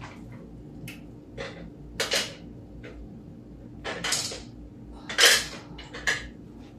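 Pots, pans and utensils clattering: a string of separate knocks and clanks, the loudest about five seconds in, over a steady low hum.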